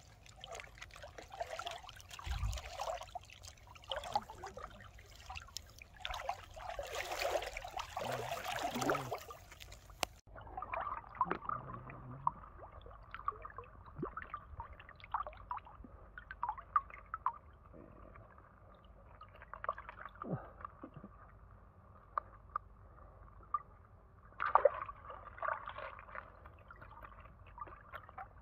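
Shallow seawater sloshing and trickling in irregular splashes, with an abrupt change in the sound about ten seconds in.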